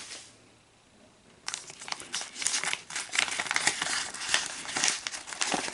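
LaserDisc sleeve rustling and crinkling as a disc in it is handled, starting about a second and a half in.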